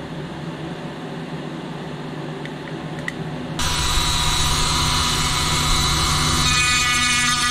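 Handheld rotary tool with a pink grinding stone switched on about halfway through and running at high speed with a high whine. Near the end the tone changes as the stone is brought to a small rivet head on a plastic toy part.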